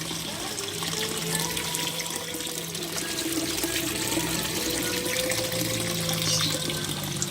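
Water running and splashing steadily, with background music playing over it.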